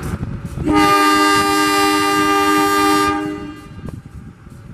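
KAI diesel locomotive sounding its horn once, a steady multi-tone blast of about two and a half seconds starting just under a second in, as the departure signal before the train pulls out of the station. The locomotive's diesel engine idles beneath it.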